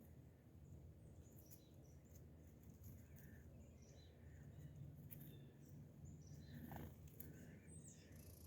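Near silence with faint, scattered short chirps of small songbirds over a low steady background rumble.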